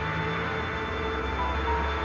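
Background music: held notes over a steady low bass, with a few short higher notes changing in the second half.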